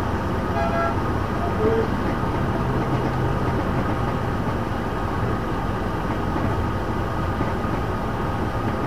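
Scammell S26 heavy haulage tractor's diesel engine running steadily at low parade speed, heard from inside the cab.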